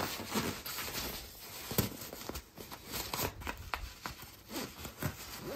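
Nylon fabric of a portable play yard's carry bag rustling and scraping as hands push and handle the packed bag, in irregular short scrapes and knocks.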